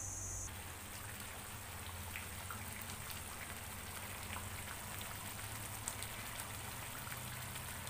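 Chilli paste frying in oil in a wok, a steady soft sizzle scattered with small pops and crackles, at the stage where the oil has begun to separate from the paste. A steady low hum runs underneath.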